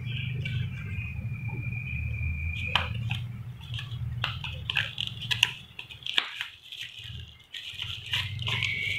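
Rustling and small clicks of cardboard and plastic phone packaging being handled as the box is unpacked, over a steady low hum that drops out briefly after about six seconds.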